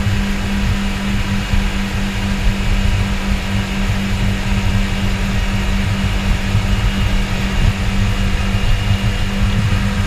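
Twin Suzuki four-stroke outboard motors running steadily at speed, a constant low drone over the rush of churned water in the wake.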